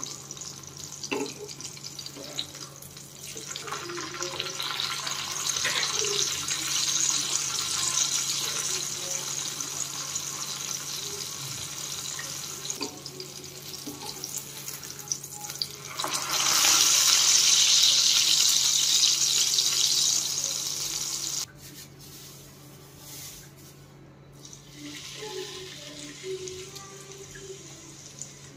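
Water running from a tap into a sink as a steady hiss. It gets louder about 16 seconds in and stops abruptly a few seconds later.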